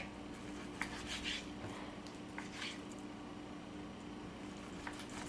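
Faint, scattered light clicks and soft rustles of hands handling things on a kitchen counter, over a steady low hum.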